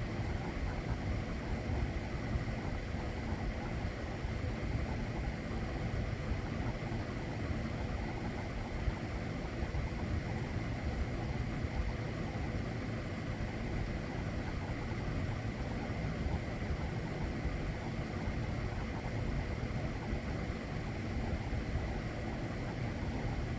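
Electric fan and air conditioner running: a steady airy whoosh with a faint, constant hum.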